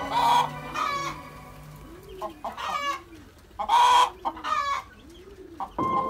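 A hen clucking: about six short, separate calls, the loudest near the middle.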